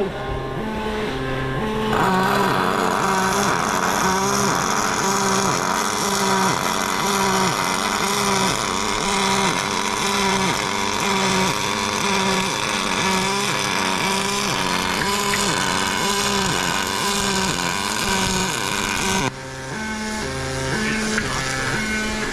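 Pulse MIG welding arc on aluminium, with the current turned down, giving a steady crackling hiss that starts about two seconds in and cuts off shortly before the end. Background music with a steady beat runs underneath.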